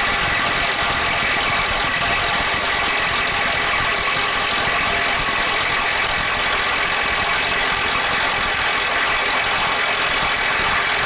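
Kobalt KIW 124B-03 24V brushless mid-torque impact wrench hammering steadily at full power in reverse against a nut torqued to 1,100 ft-lbs. The nut never breaks free, so this is the tool at its limit.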